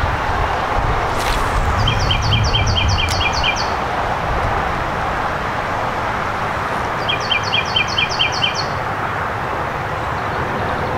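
A songbird sings the same phrase twice, about five seconds apart: a run of seven or eight quick, even, high notes. Underneath is steady wind rumbling on the microphone.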